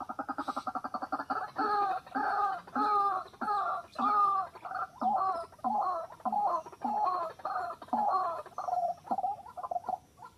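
White-breasted waterhen calling: a fast run of short notes, then a long series of repeated loud croaking calls, about two to three a second.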